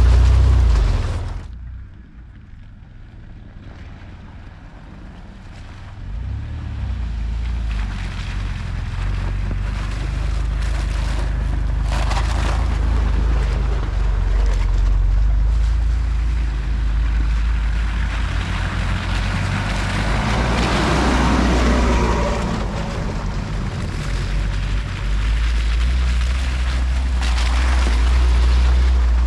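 Toyota 4x4 truck driving: a steady low engine and drivetrain rumble that drops away sharply about a second and a half in and comes back up around six seconds in.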